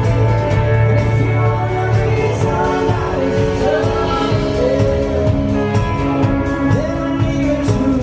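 Live acoustic band: strummed acoustic guitars with male voices singing, the singing coming in clearly about two and a half seconds in.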